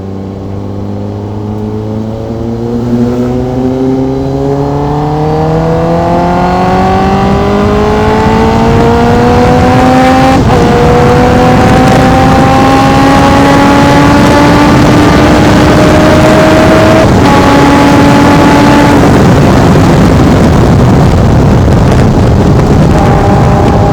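Sport motorcycle accelerating hard, its engine pitch climbing steadily for about ten seconds. Quick gear changes come about ten and seventeen seconds in, and wind rush builds with the speed. Near the end the revs drop back and settle.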